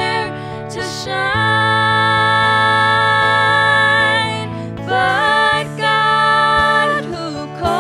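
Worship music: a hymn performed with instruments and a voice holding long notes that slide between pitches.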